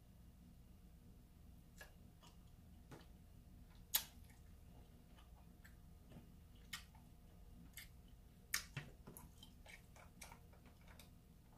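Irregular sharp clicks and cracks of king crab leg shell being broken and picked apart by hand, with one loud crack about four seconds in and a cluster of cracks a little past halfway, over a faint low hum.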